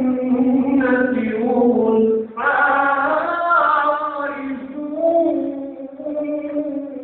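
A man's voice reciting the Quran in a melodic chanting style (tilawat), drawing out long held notes that glide up and down. There is a short pause for breath about two seconds in, then a louder, higher phrase, and the voice eases off near the end.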